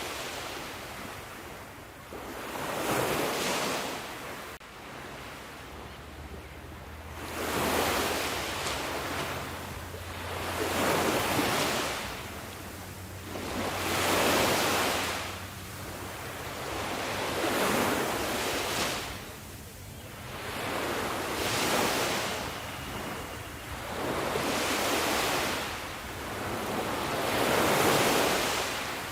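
Sea waves breaking on a shore, one wash of surf swelling and fading about every three to four seconds, nine in all.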